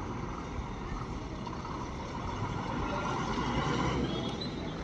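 Diesel engine of a state-transport bus running as the bus pulls away and drives across the yard, growing slightly louder toward about four seconds in. A short, faint high squeal comes near the end.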